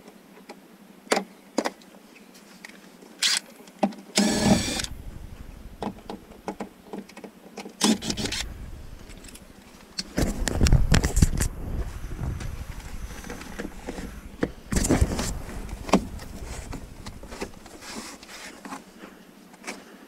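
Plastic interior trim of a Mini Cooper being dismantled: small clicks and snaps as grab-handle covers are prised off with a pick tool, a short creak about four seconds in, then bumps and rustling as the removed parts are handled and set down.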